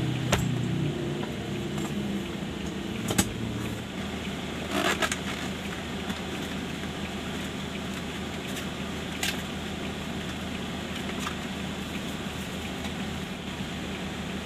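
Steady hum of a car and passing road traffic, with a few sharp clicks and a short crinkle of paper and cardboard as a fast-food box and its wrapping are handled.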